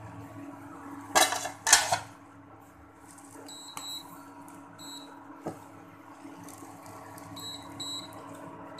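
A steel pan lid lifted off the omelette pan with two loud clatters about a second in, over the steady hum of a low-power induction heater with short high whines coming and going.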